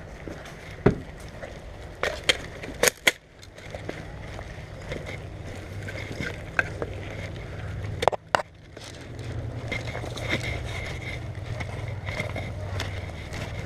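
Footsteps and movement crunching through brush and leaves, with a few sharp snaps or knocks: a single one about a second in, three around two to three seconds, and a close pair about eight seconds in.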